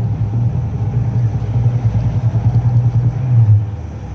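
Deep bass from music played through a homemade NE5532 subwoofer low-pass filter and a small amplifier: only the low notes come through, as a pulsing rumble around 100 Hz. It drops off sharply near the end.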